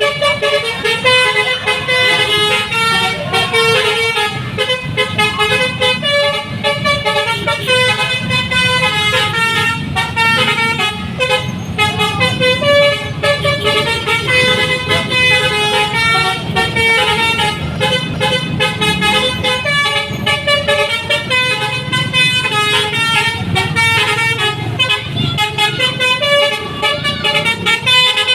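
Bus telolet horn, a multi-tone air horn, playing a fast melody of short notes that jump from pitch to pitch without a break, over the rumble of the bus engine.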